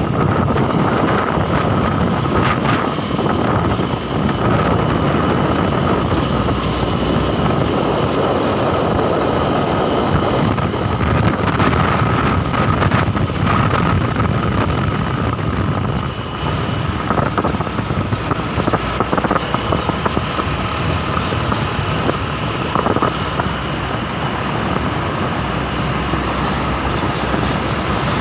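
Steady vehicle and road noise from traffic on a highway, with a constant high whine running under it.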